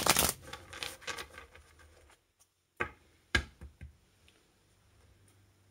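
Tarot cards being shuffled: a fast run of papery clicks that ends within the first half second, then lighter shuffling, then a few separate sharp card taps about three seconds in.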